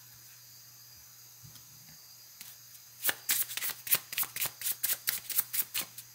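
A deck of tarot cards shuffled by hand. After a quiet start, a quick run of sharp card snaps and flicks begins about halfway through, several a second.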